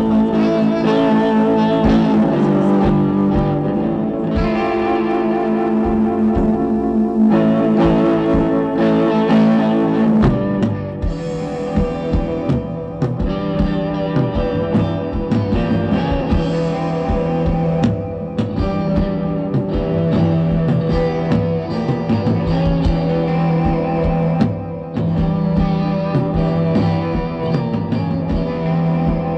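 Live amplified band music: electric guitar playing sustained chords, with short drum hits coming in about ten seconds in.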